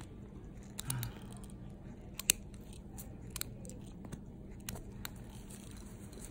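Steel toenail nippers snipping and crunching through thick, fungus-infected toenail: a handful of short sharp snaps, the loudest a little over two seconds in.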